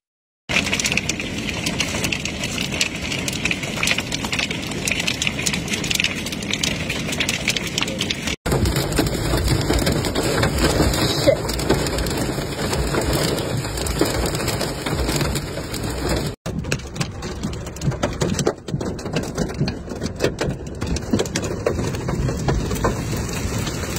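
Heavy rain pouring down in three stretches of storm footage, each joined to the next by an abrupt cut, with a dense crackle of drops striking hard surfaces.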